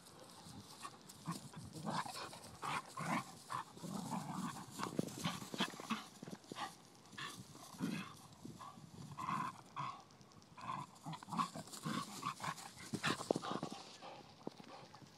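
A pit bull puppy and a Vizsla playing together: many short, irregular dog vocal sounds mixed with scuffling on grass.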